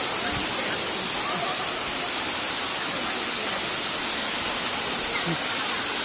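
Steady rush of water running over rocks in a shallow forest stream below a waterfall.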